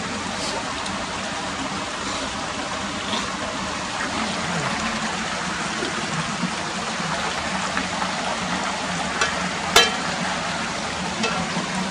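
Small stream running steadily over rocks, with one sharp click about ten seconds in.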